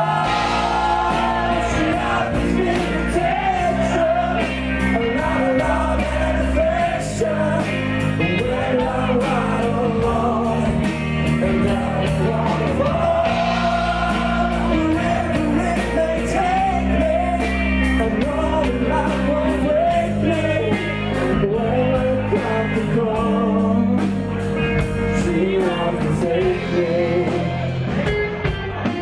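Loud rock music with a singer and a steady drum beat, as heard at a rock concert.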